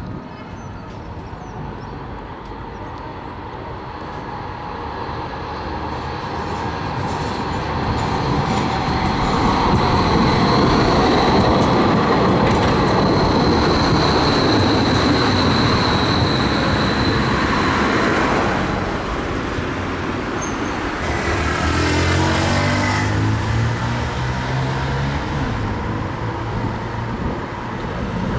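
Bombardier Flexity M8D-NF2 low-floor tram approaching on street-level track and passing close by: rolling noise builds to a peak about halfway through, with a steady high whine over it, then fades as the tram moves away. Road traffic follows.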